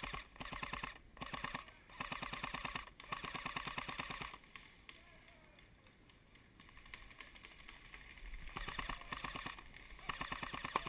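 Airsoft electric gun (AEG) firing on full auto: rapid, evenly spaced bursts of plastic BB shots with the gearbox whirring. Four bursts come close together in the first four seconds, then, after a lull, two more near the end.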